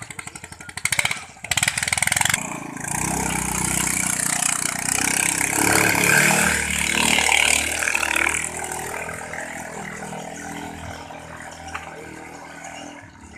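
Katinting longtail boat with a stock engine running hard: a fast clattering engine beat at first, then the engine noise swells to its loudest about six seconds in and fades away steadily as the boat passes and moves off.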